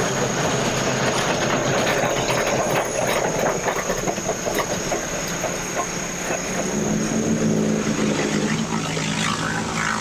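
Machinery clattering and rattling, with an engine's low drone coming in after about six seconds. Behind it runs a steady high-pitched insect buzz.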